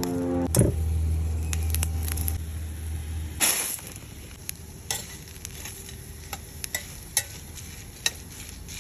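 Food frying in a hot pan: a sizzling hiss with scattered sharp pops and crackles. A low hum runs under the first three seconds, and a brief louder rush comes about three and a half seconds in.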